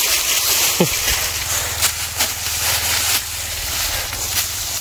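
Footsteps crunching and rustling through dry fallen bamboo leaves, irregular crackles over a steady hiss.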